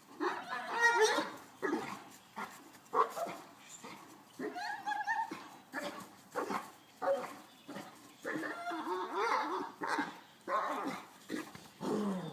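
Great Danes barking and whining in a run of repeated, pitched calls: some short and sharp, some drawn out and bending in pitch.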